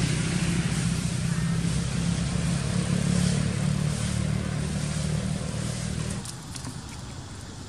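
A motor vehicle engine running steadily with a low hum, stopping abruptly about six seconds in and leaving quieter outdoor background.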